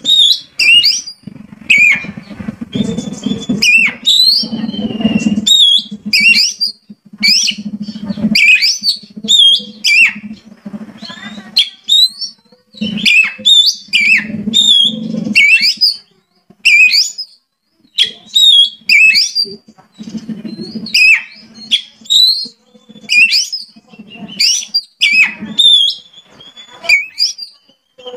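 Oriental magpie-robin singing: loud, short sweeping whistled phrases, about one a second with brief gaps, over a low hum that comes and goes.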